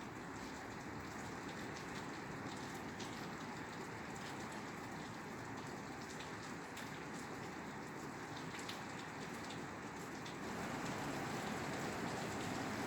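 Rain falling on a roof: a steady hiss with many separate drops ticking. It grows a little louder about ten seconds in.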